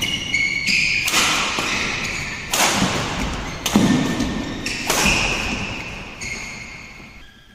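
Badminton rally in an echoing hall: four sharp racket-on-shuttlecock hits about a second or so apart, each ringing on in the hall. Short high squeaks are heard between the hits, and the sound fades toward the end.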